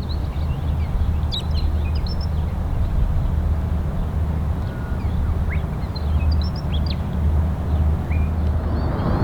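Birds chirping in short scattered calls over a steady low rumble. Near the end the rushing noise of an approaching jet airliner begins to build.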